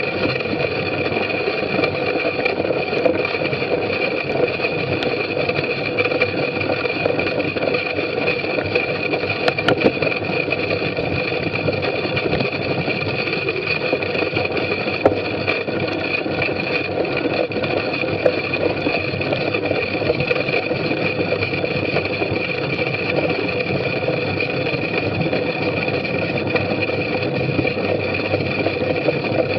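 A bicycle ridden hard over a muddy grass course, heard from a camera mounted on the rider or bike: a steady rolling rattle and rumble of tyres, chain and frame, with occasional sharp knocks over bumps.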